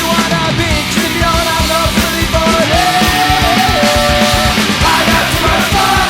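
Loud rock music with a fast, steady beat and a held, wavering melody line.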